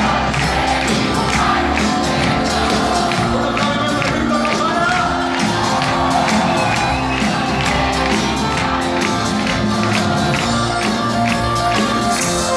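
Live rock band playing with drums, guitars and keyboards on a steady beat, the audience cheering and shouting along over the music.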